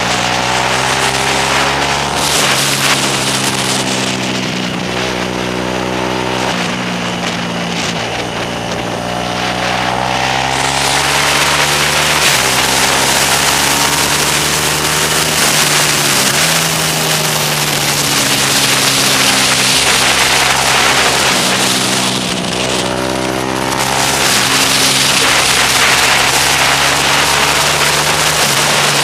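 Motorcycle engine on track at speed, with wind rushing over the mic: the revs climb and drop back repeatedly at gear changes, hold high and steady in the middle, then fall sharply about sixteen seconds in as it slows for a corner before pulling up through the gears again.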